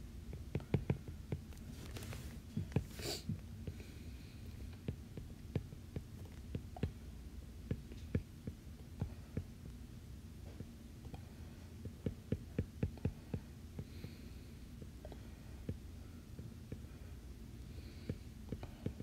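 Stylus tapping on an iPad's glass screen in quick, irregular light taps as short pencil strokes are drawn, over a low steady hum.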